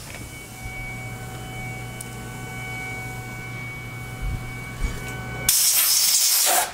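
Steady electrical hum and whine from the Tormach PCNC 1100 CNC mill standing with its spindle stopped, with two soft knocks, then about a second of loud hissing from a compressed-air blow gun clearing chips from the freshly milled slot in the steel soft jaw.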